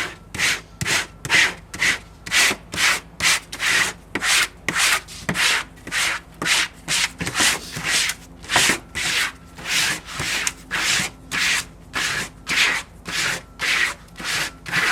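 A squeegee scraping over a vinyl decal and its pre-mask layer in quick back-and-forth strokes, about two to three a second. The strokes press the vinyl onto the pre-mask so that it releases from the backing liner.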